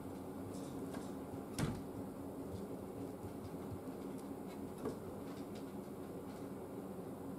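Steady low room hum with a sharp wooden knock about a second and a half in and a fainter click near five seconds: cats bumping the sliding door and its cat flap as they push through.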